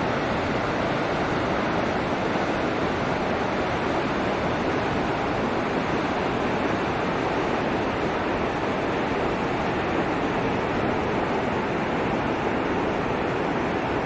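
Steady, unbroken rush of the Krimml Waterfalls, heavy water falling and churning down a rocky white-water torrent.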